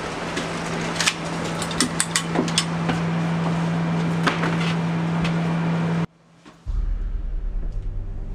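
Footsteps and sharp knocks on wooden stairs over a steady hiss with a low hum. About six seconds in this cuts off suddenly and a low, dark music drone begins.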